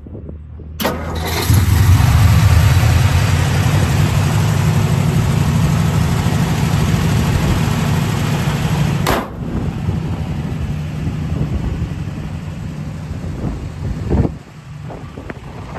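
1959 Ford F-250's V8 engine on a cold start: it cranks briefly, catches under a second in and runs at a steady idle. The sound drops in level about nine seconds in and again near the end.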